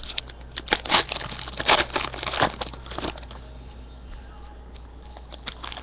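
Trading card pack wrappers crinkling and tearing as packs are opened and the cards handled: a run of irregular sharp crackles, easing off about halfway through and picking up again near the end.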